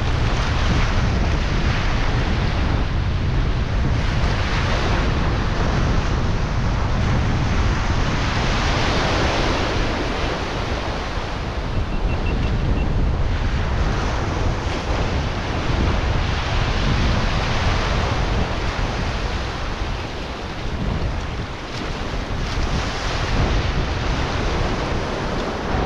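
Ocean surf breaking and washing up the beach, swelling every few seconds, with wind buffeting the microphone.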